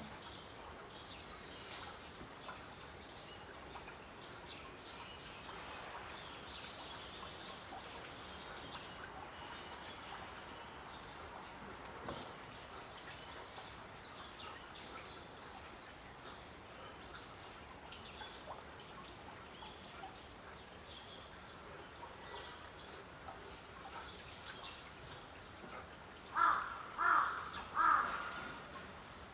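Small birds chirping on and off over a steady outdoor background, with three loud calls close together near the end.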